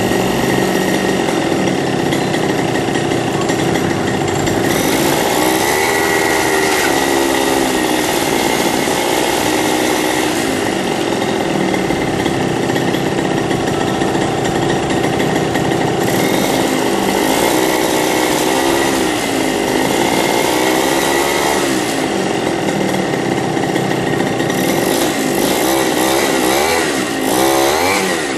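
Small bike engine running hard and steadily with a buzzing note, its pitch dipping and rising a few times as the revs change.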